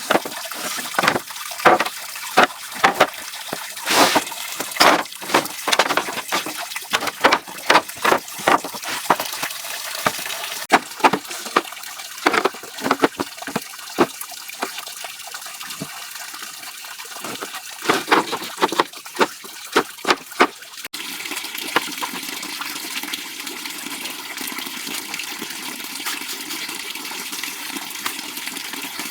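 Water splashing in irregular strokes, a couple a second, then about 21 seconds in a sudden change to a steady rush of water.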